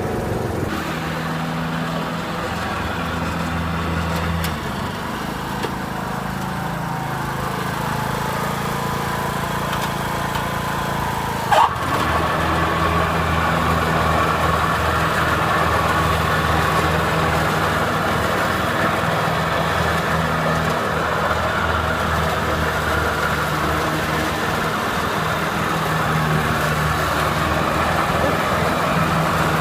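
Riding lawnmower engine running steadily. A single sharp knock comes about a third of the way in, after which the engine runs a little louder.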